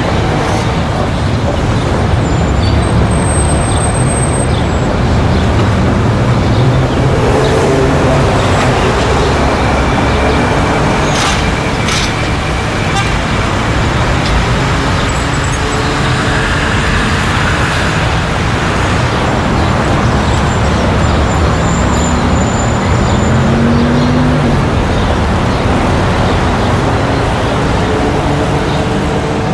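Busy street traffic: vehicle engines and tyres running steadily, with horns sounding briefly now and then.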